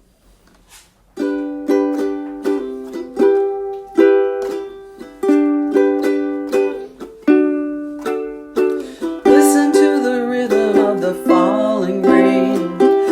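Chords strummed on a small stringed instrument as a song's introduction, starting about a second in. A voice starts singing over the strumming about nine seconds in.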